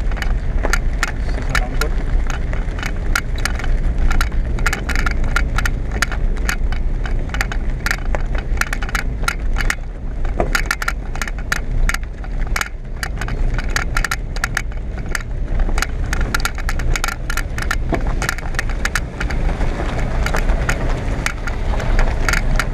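Car on the move heard inside the cabin: a steady low engine and road rumble, with a dense, irregular clicking rattle over it.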